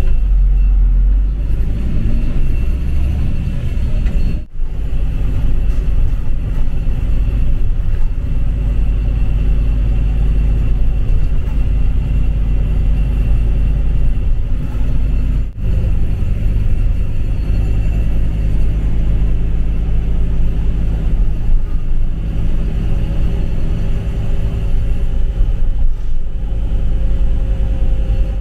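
Bus engine and road rumble heard from inside the cabin while under way, steady and low. Two very short dropouts break it about four and fifteen seconds in.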